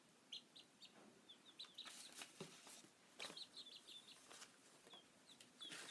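Faint, short, high-pitched chirps and soft clucks from chickens, scattered through, with a few soft clicks.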